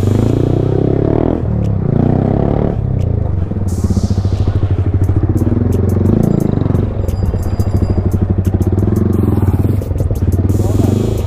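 Motorcycle engine running under way, its pitch rising and falling as the throttle is opened and closed, with music underneath.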